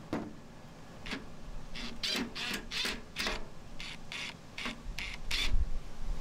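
A series of irregular sharp clicks and clatters, about a dozen over a few seconds, from small metal and plastic parts being handled as a microwave oven is taken apart.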